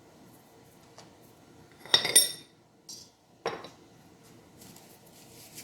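Kitchen utensils and dishes knocking together: a loud ringing clink of metal on a bowl about two seconds in, then a duller knock a moment later.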